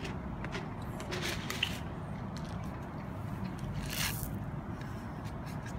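Cats crunching dry kibble: scattered small clicks and crackles over a steady low background rumble. About four seconds in, a brief rustle as fur brushes against the microphone.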